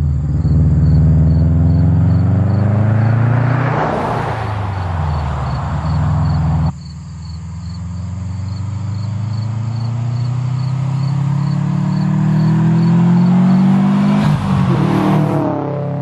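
Subaru WRX STI's turbocharged flat-four running through a loud aftermarket exhaust in two drive-by passes, the exhaust note swelling as the car nears and goes by. The first pass peaks about a quarter of the way in and cuts off abruptly; the second builds steadily and peaks near the end.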